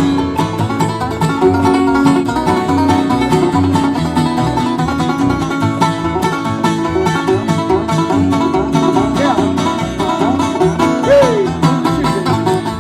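Bluegrass band playing an instrumental break: fast banjo picking over acoustic rhythm and upright bass.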